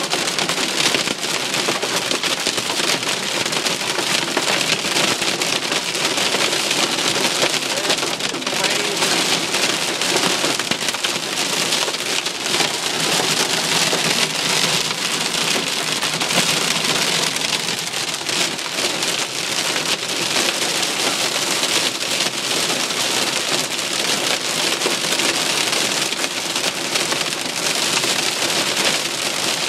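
Heavy rain pelting a car, heard from inside the cabin: a steady, dense hiss of countless small impacts that holds unbroken throughout.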